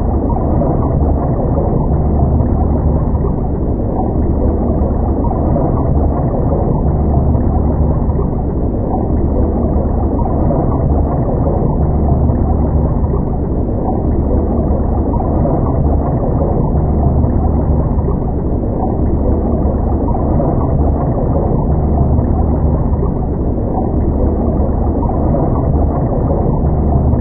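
Underwater ambience sound effect: a steady, muffled deep rumble that swells and eases about every two seconds.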